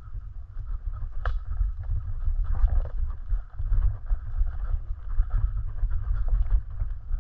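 Wind buffeting the microphone of a mountain bike riding over dirt singletrack, with tyre noise on the dirt and scattered clicks and rattles from the bike over bumps; one sharper knock about a second in.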